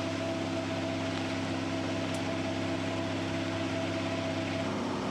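Steady hum and hiss of a Challenger 605 business jet idling on the ground. Several fixed tones hold throughout, and the highest one cuts out near the end.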